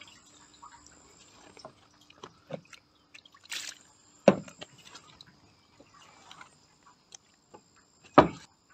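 Wet handling of a carp on an unhooking mat: scattered light knocks, rustles and water sounds, with two sharp slaps, one about four seconds in and one near the end as the mirror carp is lifted.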